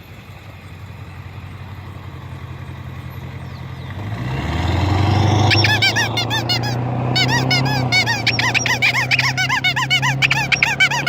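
A car passing, its engine growing louder about four seconds in. Then rapid squeaks from a hand-squeezed toy horn, several a second, each rising and falling in pitch, keep going to the end.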